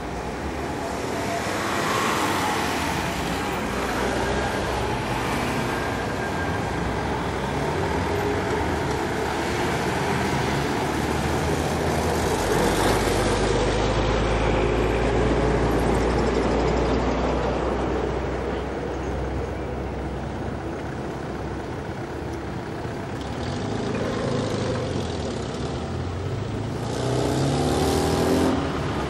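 City street traffic: cars and vans driving past with engine and tyre noise, a deep rumble swelling in the middle, and an engine rising in pitch as a vehicle accelerates near the end.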